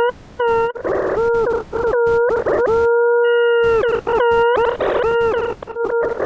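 Electronic tones from the Desmos graphing calculator's audio trace. Short tones at one steady mid pitch bend at their starts and ends, with bursts of static between them and one long held tone about halfway through, giving a howl-like, warbling effect.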